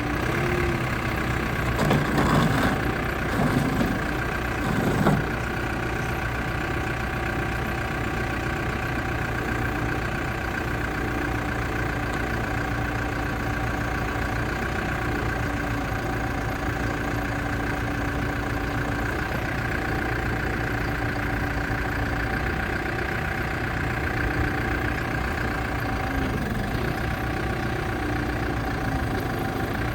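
New Holland B95 loader backhoe's diesel engine idling steadily, with a few short louder sounds between about two and five seconds in.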